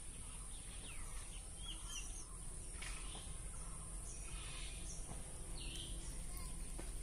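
Birds chirping in short, scattered calls over a steady high-pitched hiss and a low outdoor rumble.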